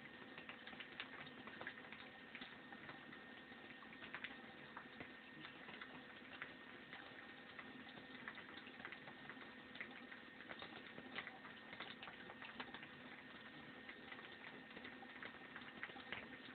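Faint rustling and scattered small clicks of hair and anchor thread being picked apart and pulled by hand, over a faint steady hum.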